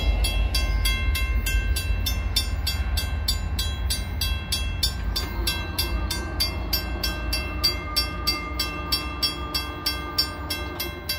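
Level-crossing warning bell ringing steadily at about four strokes a second, over the fading rumble of a passenger train moving away. From about five seconds in, the crossing gate mechanisms hum with a slowly rising tone as the barrier arms lift.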